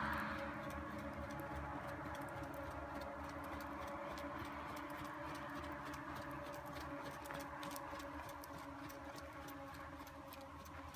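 Stallion's hooves beating an even, quick rhythm on a gravel arena under a rider, as faint clicks. A broader rushing noise fades away in the first half-second, and a faint steady hum lies underneath.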